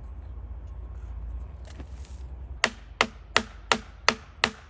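Hammer blows, evenly spaced at about three a second, starting a little past halfway through, each strike ringing briefly.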